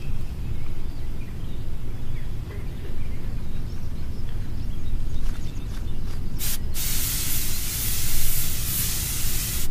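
Aerosol can of got2b hairspray spraying: a short spurt about six and a half seconds in, then a steady hiss for about three seconds, over a low rumble of outdoor noise.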